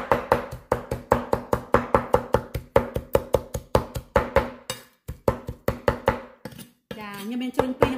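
Steel cleaver chopping fermented fish (prahok) with herbs on a thick wooden cutting board: quick, even knocks about four a second, pausing briefly twice in the second half. Music with singing plays behind it and comes up near the end.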